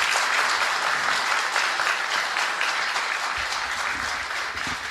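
Audience applauding, many people clapping together; it eases off slightly near the end.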